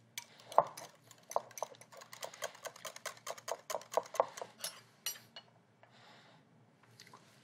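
Wire whisk clicking and scraping against a glass bowl as a thick sauce is whisked: a quick, irregular run of clicks that stops about five seconds in.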